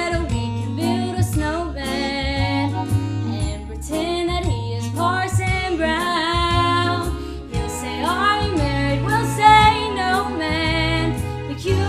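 A song: a singer with vibrato over instrumental accompaniment and a steady bass line.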